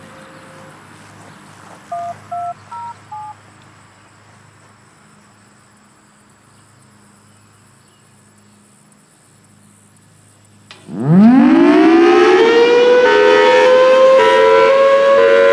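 Four short touch-tone beeps sound over a quiet background about two seconds in. Near the end, after a click, a Federal Signal Thunderbolt 1003 outdoor warning siren starts up: it winds up, rising steeply in pitch for about two seconds, then settles into its hi-lo signal, alternating between two tones.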